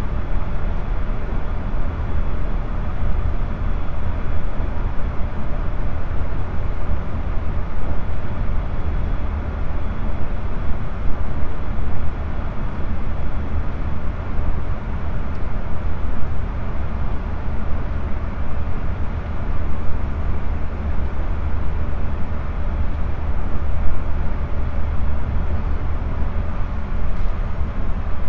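Running sound of a JR Central 373 series electric train's motor car (KuMoHa 373) cruising between stations, heard from inside the car. A steady rumble of wheels and running gear on the rails, heavy in the low end, with no clear change in speed.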